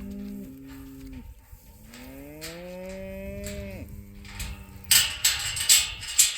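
Shorthorn cattle mooing: two long moos, each rising in pitch and then holding steady. Near the end comes a cluster of loud, sharp crackling knocks.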